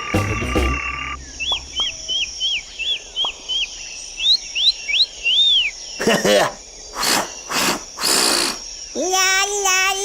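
Cartoon sound effects: a run of short, high chirps about three a second, a few rising squeaky sweeps, then several whooshes, and a held pitched note, like a sung or synth voice, starting near the end.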